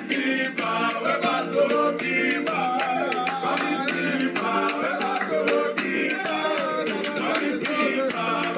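A song playing, with sung vocal runs that rise and fall in pitch over shaker-like percussion.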